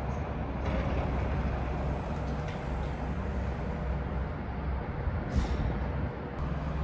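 Steady low rumble of vehicle engine noise, with a brief higher hiss about five and a half seconds in.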